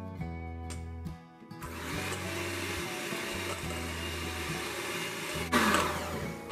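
Electric hand mixer running, its wire beaters whisking raw eggs in a stainless steel bowl, with a steady motor whir from about a second and a half in. A short, louder burst comes near the end. Background music plays under it.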